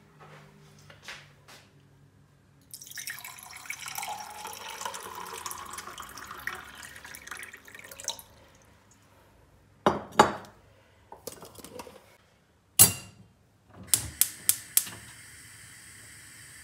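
Liquid poured into a glass for about five seconds, the pitch rising as the glass fills, followed by several sharp clinks and knocks of glass or dishes and then a steady faint hiss.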